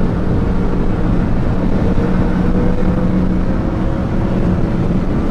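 A Seat Arosa's swapped-in 1.8T turbocharged four-cylinder engine with a GT28 turbo, heard from inside the cabin while driving at motorway speed. Its steady drone mixes with road and wind noise, and one tone rises slightly in pitch from about two seconds in.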